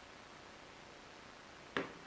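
Faint steady hiss of room tone, broken near the end by one sharp, short click or knock with a brief ring.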